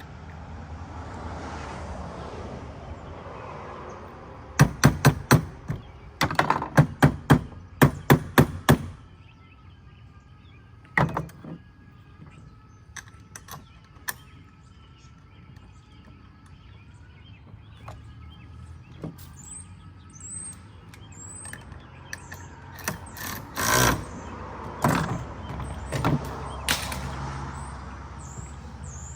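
A run of sharp knocks, about two a second, while the PACKOUT's stock wheels are swapped out, then a few scattered knocks later on.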